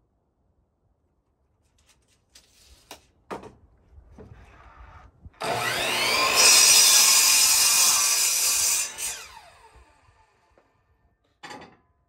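Electric miter saw switched on about five seconds in, its motor whine rising as it spins up, then cutting through a wooden board for about two and a half seconds before being switched off and winding down with a falling whine. Light knocks of the board being handled come before the cut, and a single knock near the end.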